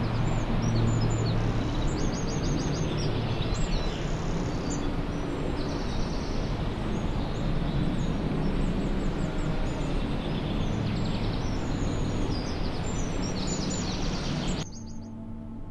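Outdoor ambience: a steady rush of background noise with small birds chirping and twittering throughout. It cuts off suddenly near the end.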